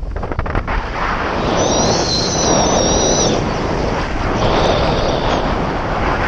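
Loud wind rushing and buffeting over the microphone of a paraglider in flight during acro manoeuvres. A thin, high whistle comes in about one and a half seconds in and fades out about two seconds later.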